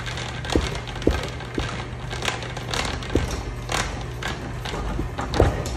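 Homemade 100 lb leaf spring power hammer running, its ram striking a wooden block in blows about twice a second that come faster near the end, over a steady motor hum. The machine's drive belts need adjusting.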